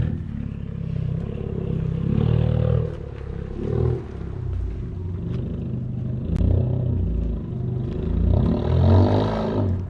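Honda Accord Sport 1.5T's turbocharged four-cylinder running through a catless downpipe with resonator and muffler deleted, its engine speed rising and falling, with louder swells about two seconds in and again near the end.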